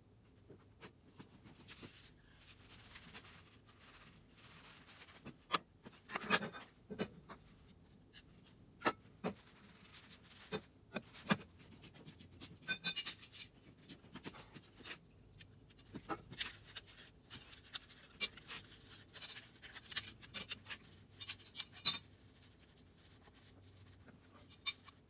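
Scattered clinks, knocks and short scrapes of metal parts being handled at a workbench vise, with quiet gaps between them.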